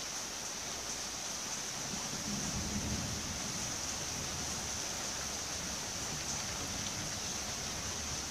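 Rain falling steadily, an even hiss, with a brief low rumble about two to three seconds in.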